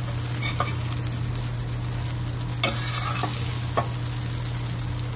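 Oil sizzling steadily in a hot frying pan while cooked blueberry oat pancakes are lifted out with a fork, with a steady low hum underneath. A few light clicks of the fork against the pan come through, about four in all.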